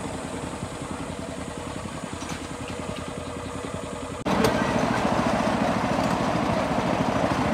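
Small engine of a motorized rail skate running steadily as the trolley rolls along the rails, getting suddenly louder about four seconds in.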